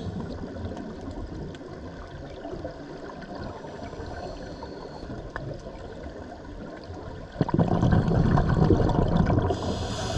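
Scuba diver's breathing underwater: a quieter stretch of bubbling water noise, then a sudden louder burst of exhaled bubbles about seven seconds in, followed near the end by the hiss of the regulator on the next breath in.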